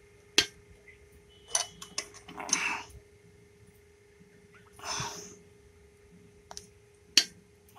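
Metal spanner clicking against the chain-adjuster nut at a motorcycle's rear axle as the nut is tightened: a few separate sharp clicks, with a couple of short breaths and a faint steady hum behind.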